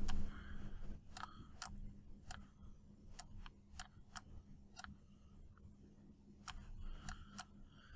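Computer mouse clicking: single sharp clicks at irregular intervals, about one or two a second, over a faint steady low hum.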